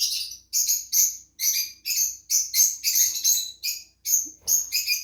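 Cockatiel calling in a quick series of short, high-pitched chirps, about two a second.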